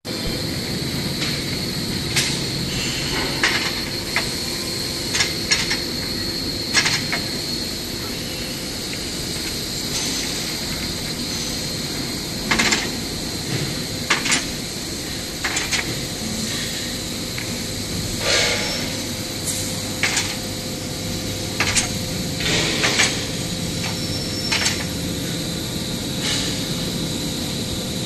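Robotic machining cell running: a steady machinery hum with a constant high whine, broken by irregular short metallic clicks and knocks. A lower steady tone joins about two-thirds of the way through.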